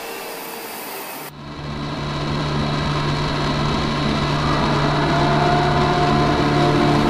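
Twin jet engines of fighter aircraft running, a steady drone with a low hum that grows gradually louder, as if spooling up for take-off. The sound changes abruptly about a second in.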